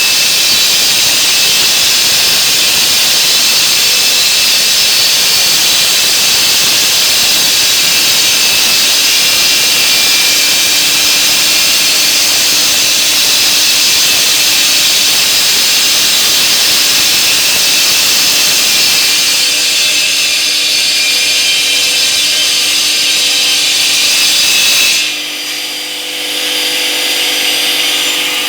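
Homemade semi-automatic stone-cutting saw running, its blade cutting stone with a loud, steady grinding that is strongest in the high pitches. About 25 seconds in, the grinding drops off sharply to a quieter hum with a few steady tones.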